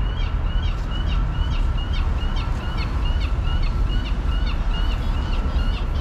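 Accessible pedestrian crossing signal sounding its electronic chirp walk tone, a short bird-like peep repeated evenly about twice a second, which signals that the crossing is open. Steady low city traffic rumble underneath.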